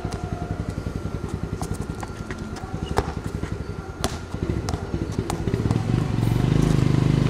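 Vehicle engine running with an even low pulsing, broken by a few sharp knocks. About six seconds in, a louder engine sound with a steady low hum comes in.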